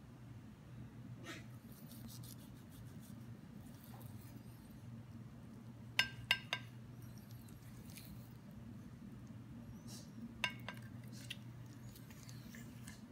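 Steel knife and fork cutting through a thick grilled steak on a ceramic plate, with sharp clinks of metal against the plate: three in quick succession about six seconds in and a few more around ten seconds in.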